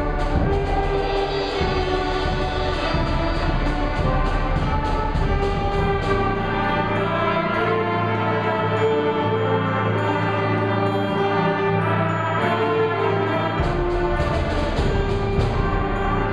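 Junior high concert band playing: brass and woodwinds hold sustained chords over a steady low bass line, with quick percussion strokes at the start and again near the end.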